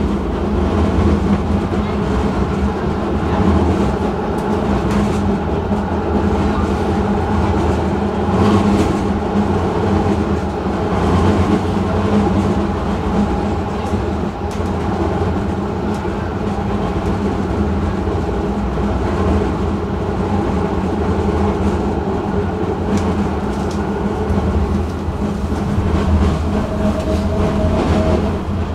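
Light-rail tram running along its track: a steady rumble of wheels and running gear with faint scattered rail clicks. A thin steady tone joins near the end.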